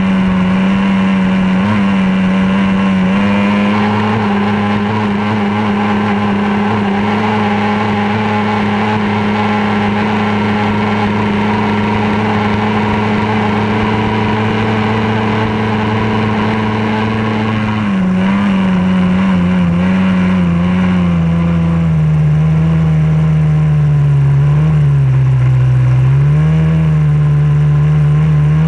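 Racing outboard motor on a small race boat running flat out at a steady high pitch, with wind and water rush. About two-thirds of the way through, the engine note drops and then wavers up and down.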